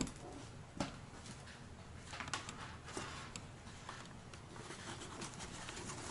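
Hands handling a snowmobile helmet's plastic shell and interior parts: a few light clicks and knocks with soft rustling between them.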